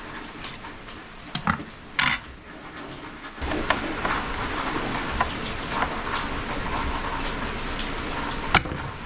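A few sharp metal clicks from handling a steel ball-bearing drawer slide. Then, about three and a half seconds in, a hand screwdriver starts turning a screw through the slide into the plywood drawer side: a steady scraping rasp with light clicks.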